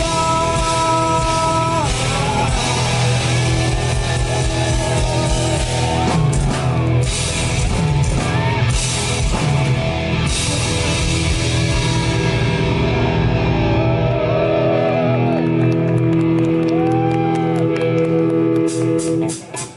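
Live rock band playing loudly through a PA: distorted electric guitar, bass and drums. About two-thirds of the way through, the deep low end drops away, leaving held notes ringing over sharp hits, and the sound dips briefly just before the end.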